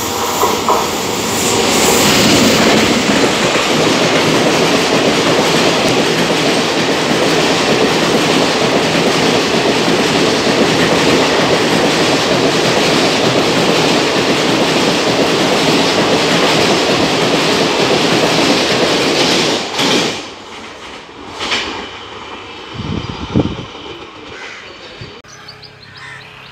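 Passenger express hauled by an electric locomotive passing through a station at speed: a loud, steady rush of wheels on rail with clickety-clack from the coaches. It stops abruptly about twenty seconds in, leaving only quieter distant sounds.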